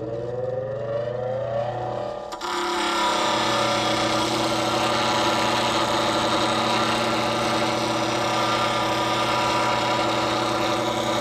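Low-speed bench grinder with a fine stone: its motor hum and whine rise in pitch over the first two seconds. About two and a half seconds in, a steel lathe scraper is set against the wheel and a steady hiss of steel being ground begins and carries on.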